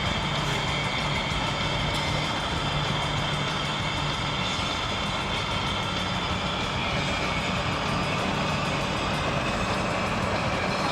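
Steady engine and road noise of a car being driven, even and unbroken.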